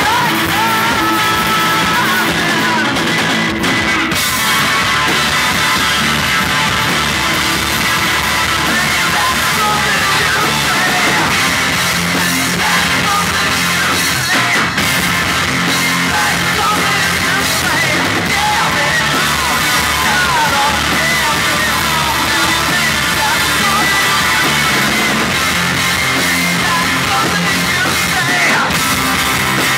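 Live rock band playing loud and steady: distorted electric guitar, bass guitar and drum kit.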